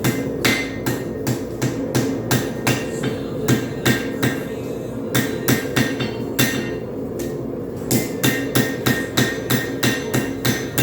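Hand hammer striking hot railroad-spike steel on an anvil, about three blows a second with a couple of brief pauses, each blow ringing. A steady low drone runs underneath.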